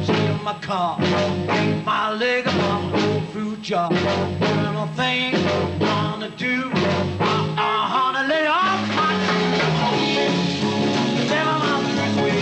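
Rock and roll band playing live: electric guitars over a steady beat, with a singing voice.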